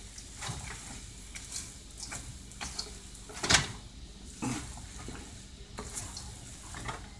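Spatula stirring and scraping fried rice with peas, carrots and egg around a hot frying pan, the rice sizzling lightly. The scrapes come irregularly, the loudest about three and a half seconds in.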